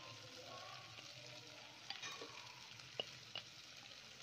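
Chicken and mashed-potato filling sizzling quietly in a non-stick frying pan as it is stirred. A few sharp taps of the spatula against the pan come in the second half, the loudest about three seconds in.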